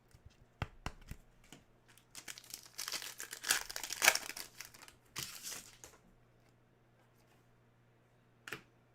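Crinkling and tearing of a trading-card pack wrapper being opened and handled, with a few light taps at first. The rustle is densest in the middle and stops about two-thirds of the way through.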